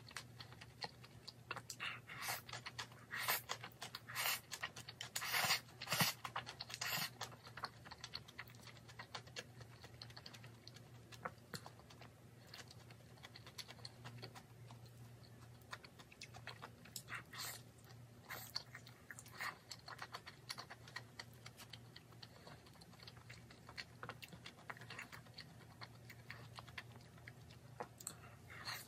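Close-up mouth sounds of someone eating jjajangmyeon (black-bean-sauce noodles): slurping noodles and chewing, with many small wet clicks. The loudest bursts come in the first several seconds and again a little past halfway.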